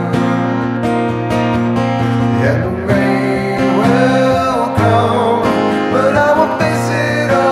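Acoustic guitar strummed, played direct through a wet reverb pedal, with a voice singing a melody over it.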